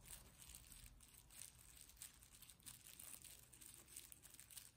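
Near silence: faint, scattered rustling and tiny crackles over room tone.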